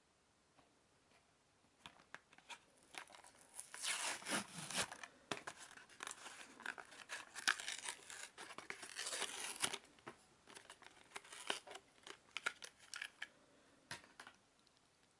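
Hot Wheels blister pack being torn open by hand: cardboard backing ripping and the plastic bubble crinkling in a long irregular run of tearing, loudest in the middle. A single sharp click comes near the end.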